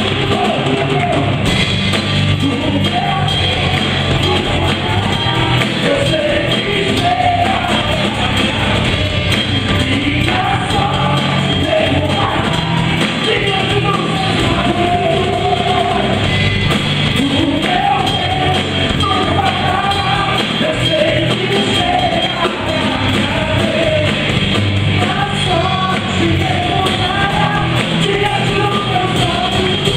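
Christian worship band performing live, singing over band accompaniment, loud and continuous.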